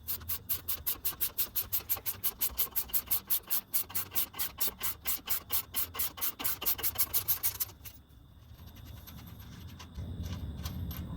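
Pass-through ratcheting wrench (18 mm) clicking in a fast, even run, about six clicks a second, as the sway bar link's top nut is backed off while a Torx bit holds the stud. The clicking stops about eight seconds in.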